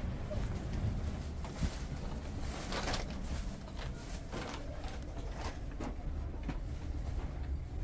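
Low wind rumble on the microphone, with a few scattered light knocks or clicks.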